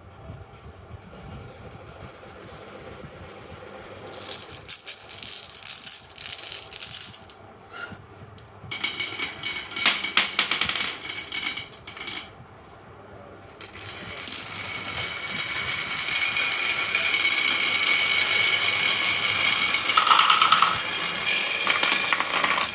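Marbles rolling and clattering along a marble run of rain gutters and wooden rails: rattling runs come in separate spells, the last one growing steadily louder over several seconds.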